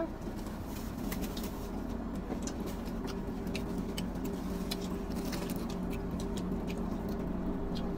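Steady hum of a car idling, heard inside the cabin, with many small scattered clicks and crackles from people eating pizza.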